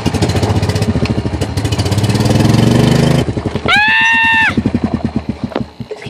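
A golf cart's small engine pulling away, its pulsing note rising in pitch for about three seconds and then easing off. A short, high, steady tone sounds about four seconds in.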